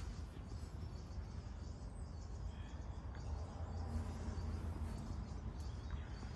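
Outdoor garden ambience: faint bird chirps over a steady low rumble.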